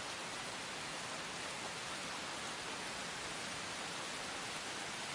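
Steady hiss of heavy rain.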